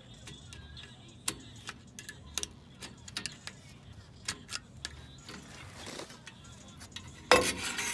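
Metal tools clicking and tapping against drum brake hardware as the shoes and springs are pried loose with flat-blade screwdrivers. A short scrape comes a little past the middle, and a loud metallic clatter comes near the end.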